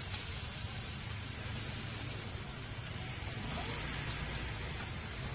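Steady hiss of oil and chillies sizzling in a wok over a burner, over a low rumble.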